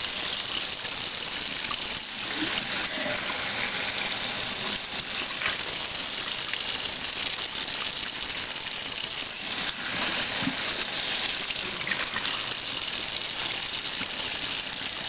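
Kitchen faucet running a steady stream into a stainless steel sink, splashing over a bowl of chopped fruit and vegetables as they are rinsed by hand.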